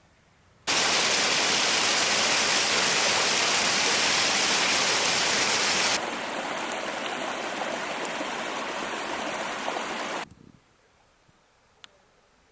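Rushing stream water, a steady hiss heard in two edited cuts. It starts suddenly, steps down to a quieter stretch about six seconds in, and cuts off abruptly about ten seconds in.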